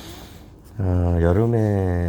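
A man's voice holding one long drawn-out hesitation sound at a steady pitch, starting a little under a second in and lasting over a second.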